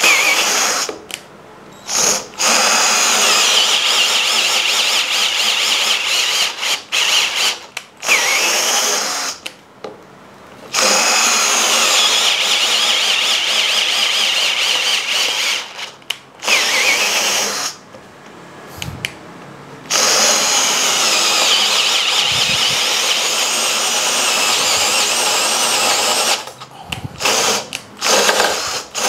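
Mollar MLR-CID20500-U 18 V cordless hammer drill with a brushed motor, on low speed, boring a 40 mm auger bit into a wooden block. The motor runs with a steady whine in four long runs of several seconds each, stopping briefly between them, with short blips near the start and end. The big bit goes through slowly on low speed; on high speed the drill seemed unable to cope.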